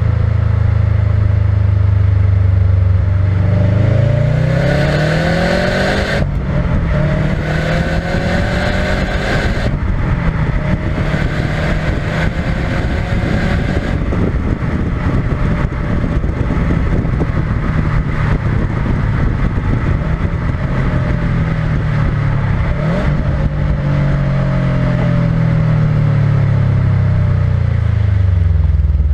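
Subaru WRX STI's turbocharged flat-four on its stock exhaust, heard from beneath the car, accelerating. The engine note rises twice, broken by brief upshifts about six and ten seconds in, then holds at a cruise over tyre and road noise, and falls away near the end as the car slows.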